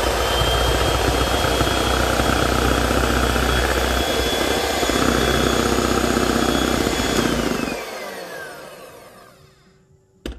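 Lord Eagle electric hand mixer running steadily at speed, its beaters whisking an egg yolk and milk mixture in a stainless steel bowl. About seven and a half seconds in it is switched off and its whine falls as the motor spins down, followed by a single click near the end.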